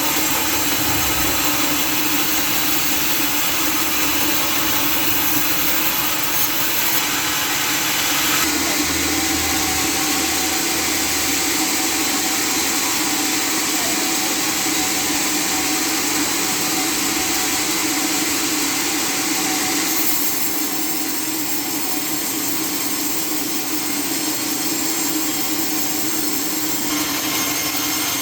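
Sawmill machinery running steadily: a constant motor hum under a hiss. The sound changes character about eight seconds in and again about twenty seconds in.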